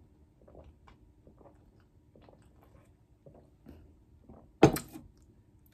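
Close-up chewing of food: soft, repeated wet mouth clicks and smacks, with one loud, sharp sound about three-quarters of the way through.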